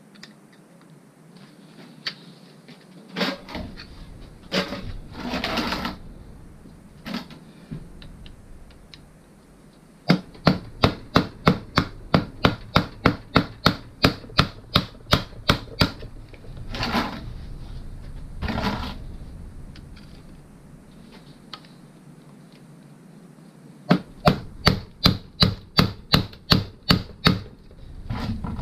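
A mallet striking the handle of a screwdriver held in a stuck screw on a Derbi engine's clutch, to break the screw loose. It goes in two runs of quick, even taps, about three a second, with a few rougher scrapes and knocks between them.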